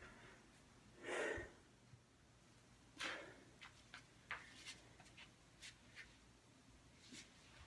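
Near silence, broken by a man's heavy exhale about a second in and a sharp breath around three seconds, then faint scattered taps and rustles as he moves about and gets down on the floor.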